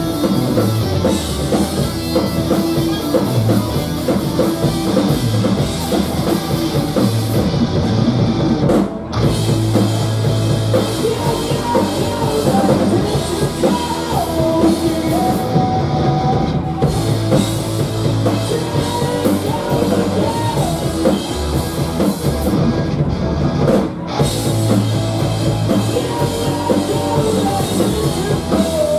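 Live rock band playing loud and continuous: electric bass, drum kit and electric guitar, with short breaks about nine seconds in and again near twenty-four seconds.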